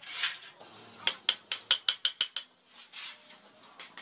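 Hammer tapping on galvanized sheet metal: a quick run of about seven sharp, ringing metallic strikes about a second in, after some clattering of the metal.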